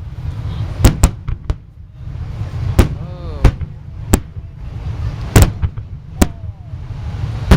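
Aerial fireworks bursting overhead: about ten sharp bangs at irregular intervals, some in quick pairs, over a constant low rumble.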